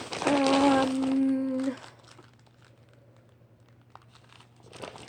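Plastic packaging of consumer fireworks crinkling as the items are handled. A steady held hum sounds over it for about a second and a half at the start. It is quiet in the middle, and the crinkling starts again near the end.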